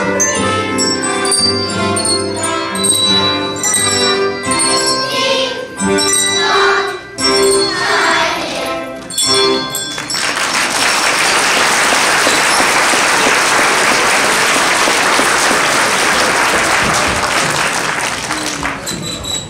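Handbells ringing with children singing to the end of a Christmas song, which stops about ten seconds in; then the audience applauds.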